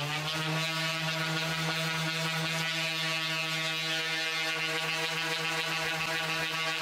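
Corded electric random orbital sander running at a steady speed while sanding the plastic underside of a motorcycle pillion seat cover, keying the surface for resin. A steady motor hum with a high, gritty edge from the pad on the plastic.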